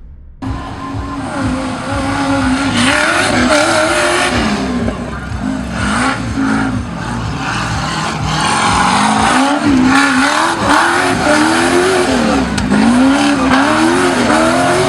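Off-road 4x4's engine revving hard, its pitch rising and falling again and again as the throttle is worked; it cuts in about half a second in.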